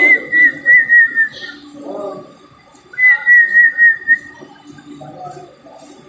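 African grey parrot whistling two wavering phrases, each about a second and a half long and drifting slightly down in pitch, with quieter low sounds between them.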